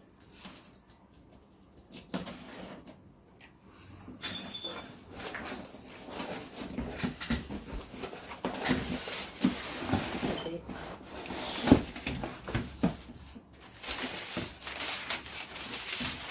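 Cardboard shipping box being opened and unpacked: rustling and crinkling of packaging with scattered clicks and knocks, quiet for the first few seconds and busier after, with one sharp knock about two-thirds through.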